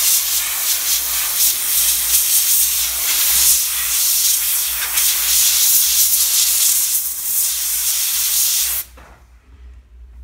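Compressed-air blow gun hissing steadily as it blows sanding dust off a freshly sanded wooden board, cutting off sharply about nine seconds in.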